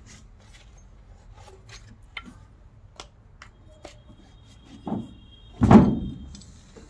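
Light metallic clicks and taps of parts being handled, then two thumps about five and six seconds in, the second the loudest, as a diesel engine's water pump assembly is set against the engine block.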